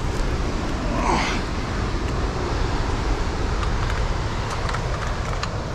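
Steady rushing of wind and ocean surf, heaviest in the low end, with a few faint clicks and scrapes of gear against granite rock.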